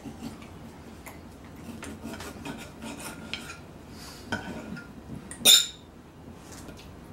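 Knife and fork cutting steak on a plate: repeated scraping and light clicks of metal cutlery against the plate, with one loud ringing clink about five and a half seconds in.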